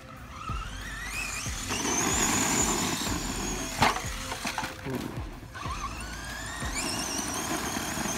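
Pro-Line Pro-MT 4x4 1/10-scale electric RC monster truck driving hard on loose dirt. Its motor and drivetrain whine rises steeply in pitch under throttle, holds high, drops away, then rises again near the end, over the hiss of tyres in the dirt. There is one sharp knock just before the middle.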